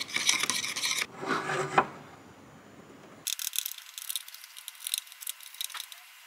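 A thin stick scraping and stirring two-part epoxy resin and hardener on a small metal plate, then spreading the epoxy along the crack of a clear plastic headlight lens. Light, scratchy strokes, with a short quiet gap about two seconds in.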